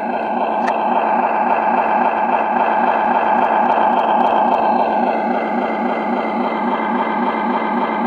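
Sound unit of a 1:14 Tamiya Kenworth RC truck playing a diesel truck engine idling with an even, steady pulse. It swells slightly about a second in and eases back a little after about five seconds.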